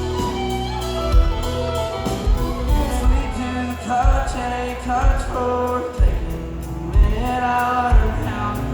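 Country music: a singer with a band, over a steady beat of low drum hits about once a second.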